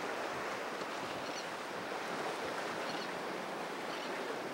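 Steady rush of surf and choppy inlet water, with wind on the microphone.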